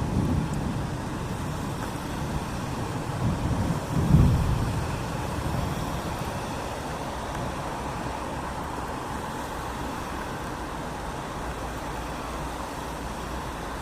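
Steady rain on a city street, with low rumbles swelling near the start and again about four seconds in, the loudest point.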